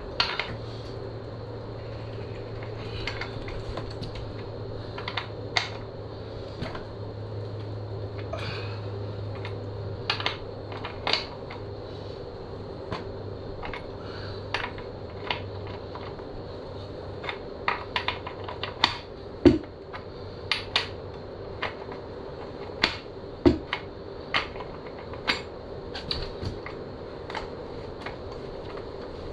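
Hand tools and metal motorcycle parts clinking and knocking irregularly as the rear axle of a dirt bike is worked out, with two heavier knocks in the second half. A steady low hum runs underneath, its deepest part fading out about halfway through.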